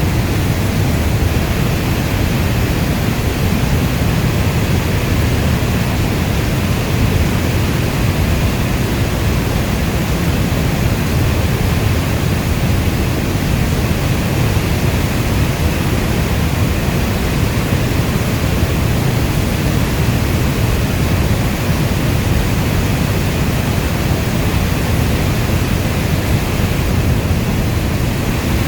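Steady heavy rain: a continuous, even hiss weighted toward a deep rumble. No single drops, thunder or other events stand out, and it does not change.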